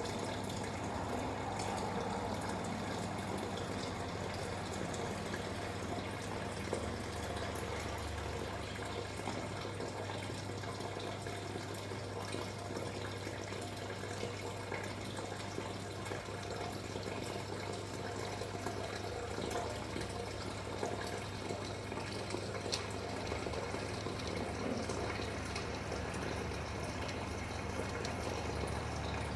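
Steady running-water noise over a low, steady pump hum, from aquarium water circulation.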